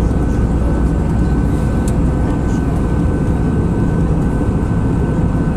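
Airbus A319 passenger-cabin noise in flight: a steady deep drone of the engines and airflow, with a thin steady high whine above it.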